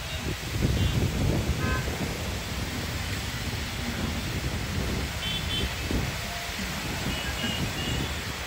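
Wind buffeting the microphone in an uneven low rumble. A few faint, short horn toots sound in the distance now and then.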